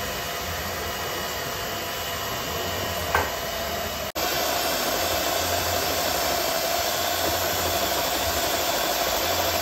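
Electric hand mixer running steadily, its beaters whirring through a thick creamy batter in a metal bowl. There is one short clink about three seconds in, and the motor sounds louder and more even from about four seconds in.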